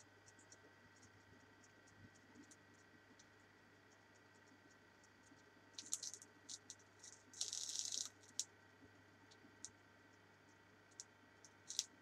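Near silence: a faint steady hum with scattered faint ticks, and a brief high hiss about seven and a half seconds in.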